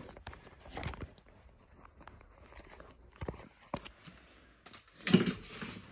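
Handling noise as the camera is lifted out of its stand and moved: scattered light knocks and rubbing, with a louder clatter about five seconds in.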